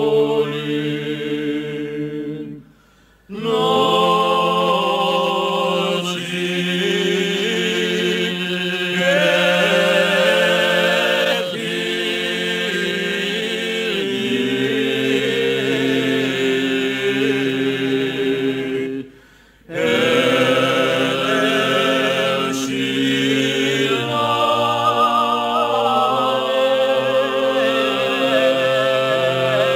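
An a cappella choir singing in several voice parts, moving between long held chords. The singing breaks off briefly twice, about 3 and 19 seconds in.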